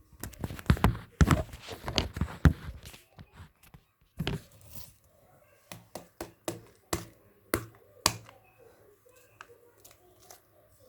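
Hands handling small objects at a table: a quick flurry of clicks and knocks for about three seconds, then single sharp taps every second or so.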